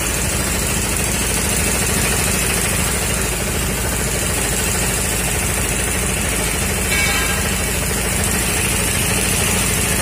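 Electric-motor-driven piston air compressor with a multi-cylinder pump, running steadily with a rapid, even pulsing. A brief high-pitched tone sounds about seven seconds in.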